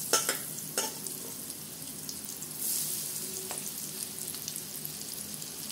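Spice-coated okra sizzling in hot mustard oil in a kadhai, a steady frying hiss with a couple of sharp pops in the first second and a brief swell in the hiss about three seconds in.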